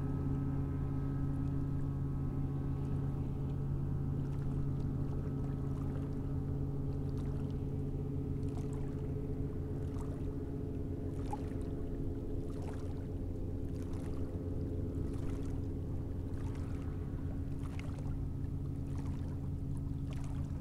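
A steady low mechanical hum with several held tones, like an engine running at constant speed, unchanging throughout. In the second half, soft short ticks or slaps come about every second and a bit.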